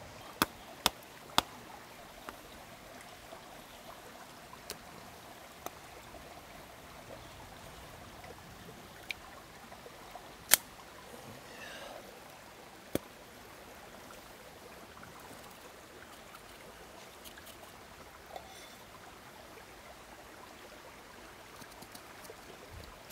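A stream running steadily over rocks, with a few sharp clicks and taps scattered through it, the loudest about ten seconds in.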